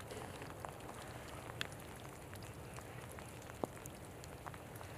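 Scattered water drops ticking irregularly on snow-covered desert brush and ground, over a low steady rumble. The sharpest tick comes about three and a half seconds in.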